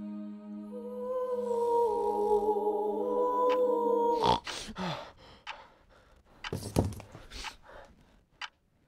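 Background music: a sustained low chord with a wavering high melody over it, cutting off suddenly about four seconds in. Scattered soft clicks and rustles follow.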